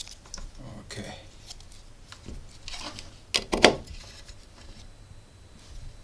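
Plastic clicks and clatter of a USB meter being handled and its USB plug pushed into a port on a plastic USB wall socket, with a couple of sharp clicks a little past halfway.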